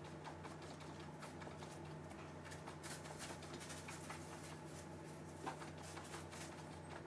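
Quiet room tone: a steady low hum with faint scattered light clicks, one a little louder about five and a half seconds in.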